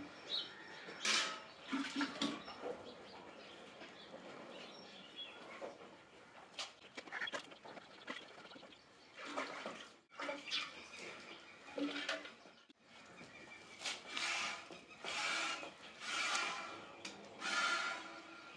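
Hand milking of a water buffalo: streams of milk squirting into a steel pail in regular hissing spurts, about one a second in the latter half, the metal pail ringing faintly with them.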